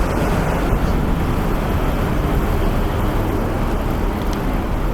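Steady road traffic noise with a low rumble, unbroken and even in level.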